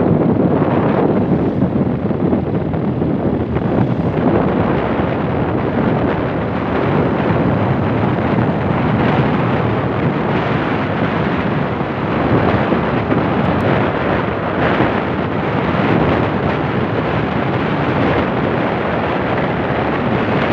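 Wind buffeting the microphone of a phone recording from a moving vehicle: a loud, steady rushing noise with the vehicle's running and road noise underneath.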